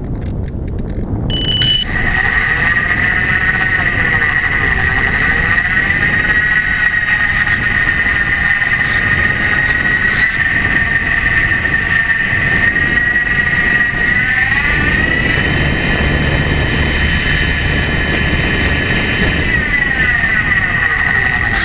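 Slow Stick model plane's electric motor and propeller running under power: a steady high whine that starts about a second in, rises in pitch about two-thirds of the way through and drops again near the end, over rushing noise on the onboard camera's microphone.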